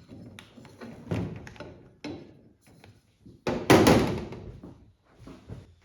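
A series of knocks and clunks of parts being handled and set down, the loudest clunk about three and a half seconds in, with a few lighter taps around it.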